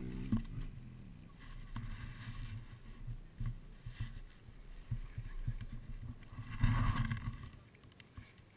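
Low, uneven rumble of motorcycle engines with wind on the microphone, swelling into a louder burst of noise about seven seconds in, then cutting off suddenly near the end.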